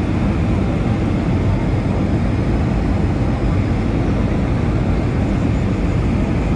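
Steady cabin noise inside a jet airliner on its descent toward landing: an even rumble of the engines and the airflow, heaviest in the low end.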